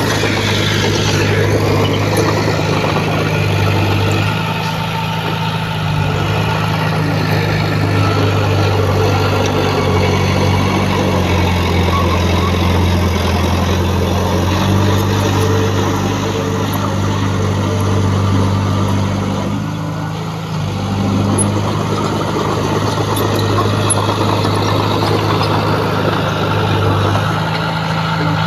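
Diesel engine of heavy earthmoving equipment running steadily, its pitch stepping up and down as the machine works, with a brief drop in level about twenty seconds in.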